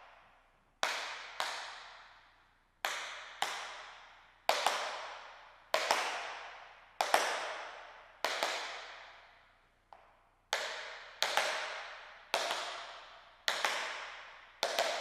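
Metal taps of tap shoes striking a wooden floor in tap-dance shuffles: pairs of sharp clicks, the toe brushing forward and back, repeated about every one to two seconds. Each pair rings out with a long echo.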